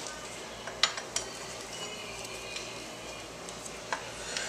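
A few light metallic clinks, spaced out, as the rear brake caliper and its bolts are handled and fitted on a motorcycle's rear wheel.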